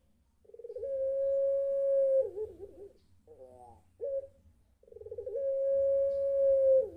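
A puter pelung, a domestic ringneck (Barbary) dove of the long-voiced type and about four months old, gives two long drawn-out coos. Each opens with a quick rolling stutter, holds one steady note for about a second and a half, then drops away, with short wavering coos between them. It is the big-voiced 'sobbing' call that the keeper takes for calling its mate.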